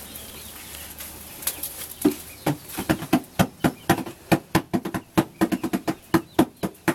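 A rapid, uneven run of sharp taps or knocks, several a second, starting about two seconds in.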